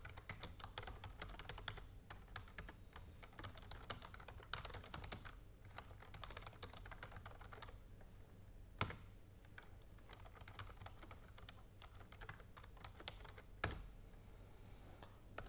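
Faint typing on a computer keyboard: quick runs of keystrokes for the first several seconds, then sparser clicks with two louder single clicks, one about nine seconds in and one near the end.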